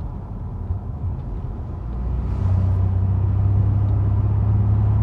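Ford Expedition making a low droning vibration that swells about two seconds in, holds steady, and drops off near the end. This is the vibration the vehicle was brought in for.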